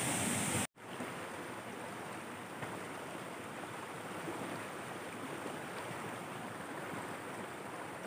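Steady rushing noise of a flowing stream. A louder hiss cuts off abruptly under a second in, and after a brief gap a quieter, even rush of water carries on.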